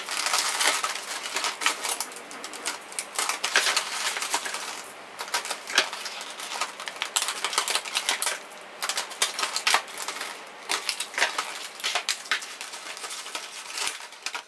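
Clear plastic blister packaging being handled and pulled apart: a steady, irregular run of crackling, crinkling and clicking of thin plastic.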